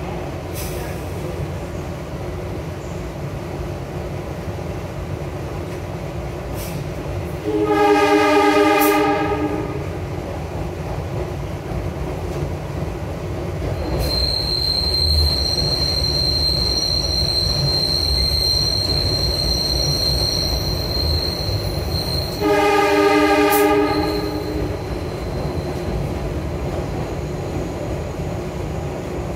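SEPTA Broad Street Line subway train running through a tunnel with a steady low rumble, heard from the front of the train. The train's horn sounds twice, each blast about a second and a half long, about 8 seconds in and again about 23 seconds in. Between the two blasts a high, steady metallic squeal rises over the running noise for about eight seconds.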